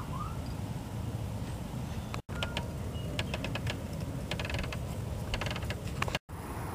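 Steady low outdoor rumble, like wind on the microphone, with two short rising chirps right at the start and a run of light clicks and crunches through the middle. The sound drops out completely for a moment twice.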